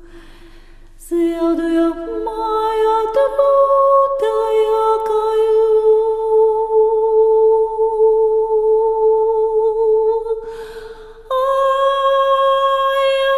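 A woman's voice singing long, wordless held notes, resonator-style vocalising. It comes in about a second in, steps up in pitch and holds one note for many seconds, then takes a breath and holds a higher note.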